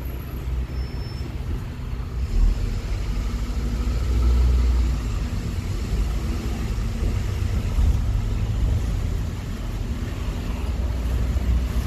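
Bus running along the road, heard from inside the cabin: a steady low engine and road rumble that swells a little about four seconds in.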